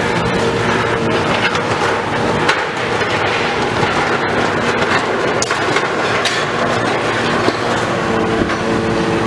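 Heavy demolition machinery at work: a diesel engine running steadily under load, with scattered sharp clanks and crunches of breaking debris.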